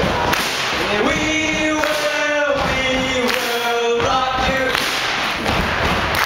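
Two male voices singing into microphones over a live rock band, with drums and electric guitar, heard through the PA in a hall.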